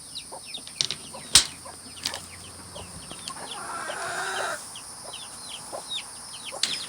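Chickens clucking while chicks give many short, high, falling peeps. A sharp knock about a second and a half in is the loudest sound.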